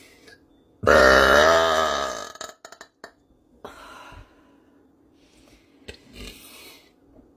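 A woman's long, loud burp with a clear pitch. It begins about a second in and tapers off over about a second and a half, followed by a few faint clicks.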